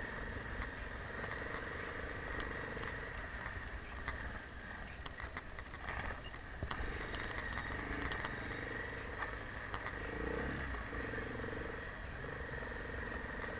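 Enduro motorcycle engine running steadily at low speed, with scattered clicks and rattles from the bike over rough snow.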